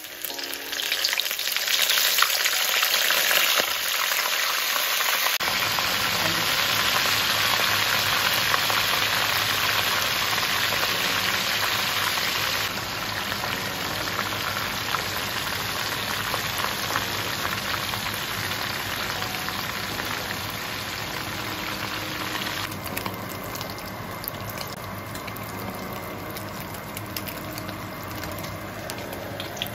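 Hot oil sizzling steadily as spice-marinated crab pieces fry in a wok. It starts about half a second in and is a little softer over the last several seconds.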